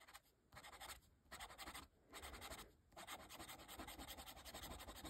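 Faint scratching of a metal pen nib scribbling back and forth on notebook paper to fill in an ink swatch: short bursts of strokes with brief pauses for about three seconds, then continuous scribbling.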